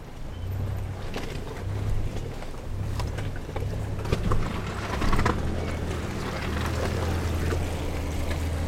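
Inside a Toyota SUV's cabin on a rough rocky track: the engine drones, uneven for the first half and then steady, under knocks and rattles from the bumpy ride, loudest around four to five seconds in.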